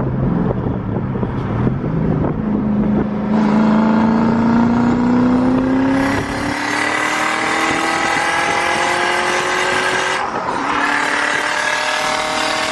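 Turbocharged Ford Crown Victoria's 4.6-litre V8 under full-throttle acceleration on about 7 psi of boost. The engine runs steadily at first, then the revs climb from about two seconds in, and a loud rushing noise joins about six seconds in. A brief break for a gear change comes near ten seconds, and then the revs climb again.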